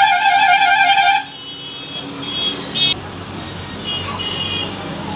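A loud steady pitched tone with a slight wobble lasts about a second, then gives way to a quieter background noise with a few faint short tones.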